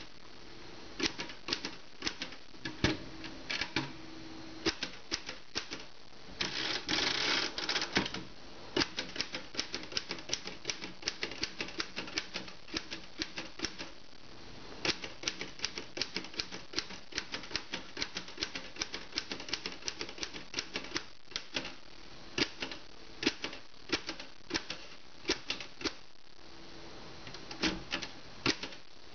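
Vintage Royal manual typewriter being typed on: irregular runs of sharp key strikes clacking against the platen. About seven seconds in there is a brief continuous rattling stretch of about a second and a half.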